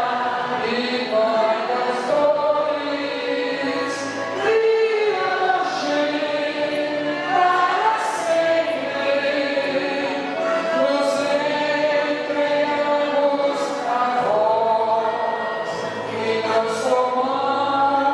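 A large crowd singing a devotional hymn together in a chant-like melody, many voices at once.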